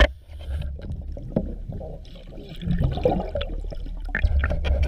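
Diver breathing through a regulator underwater: exhaled bubbles gurgling over a low rumble, loudest about three seconds in and again near the end.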